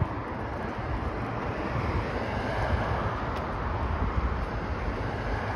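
Steady rushing noise of road traffic going by, swelling a little in the middle as a vehicle passes, with wind buffeting the microphone.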